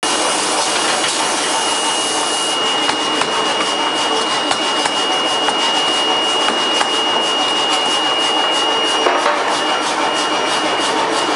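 Forge-shop machinery running: a steady high-pitched whine, typical of a medium-frequency induction heater heating steel bar ends, over a loud dense hiss. Many small ticks and clatters join in after a couple of seconds.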